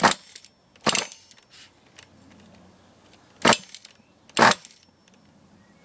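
Four short, sharp bursts in two pairs, each pair about a second apart, from start attempts on the Ansmann Virus 2.0 BigBlock buggy's .28 nitro engine. The engine does not keep running between them.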